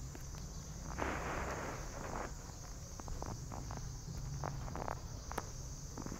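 Young kittens crawling over a cloth blanket: a soft rustle of fabric about a second in, then a string of light scratches and ticks from their claws and paws on the cloth, over a steady high hiss.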